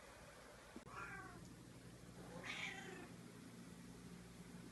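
Domestic cat meowing twice, short calls about a second and a half apart, begging for beef jerky.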